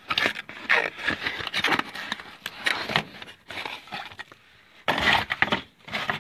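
Packaging rustling and scraping as a replacement furnace blower run capacitor is unpacked by hand, in irregular bursts with a lull about four seconds in.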